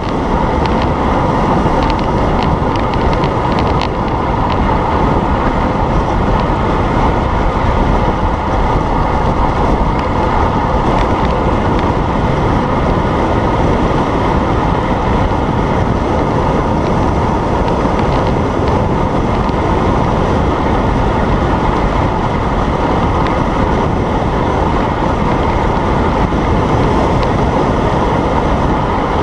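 Loud, steady wind rush buffeting the handlebar camera's microphone as a road bike descends a mountain road at speed.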